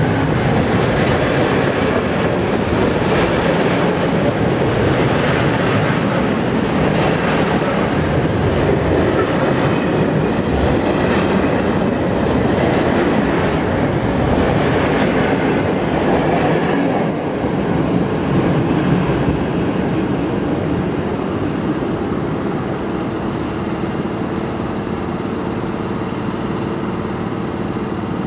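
A freight train of covered hopper wagons rolling past close by, steel wheels clattering with a clickety-clack over the rail joints. About two-thirds of the way through it eases off, leaving a quieter steady hum with a thin high whine as a PKP ET22 electric locomotive comes nearer.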